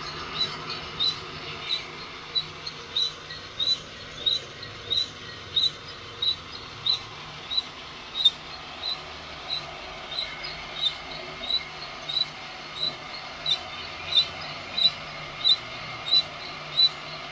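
Rotating drum of a drill-driven heat-gun coffee roaster squeaking once per turn, a short high squeak about three times every two seconds, over the steady hum of the heat gun and drill while the beans roast toward first crack.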